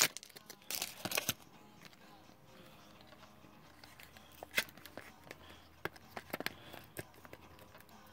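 Light handling noises from working open a collectible oil-can package by hand: two brief rustles in the first second or so, then a few scattered sharp clicks and taps.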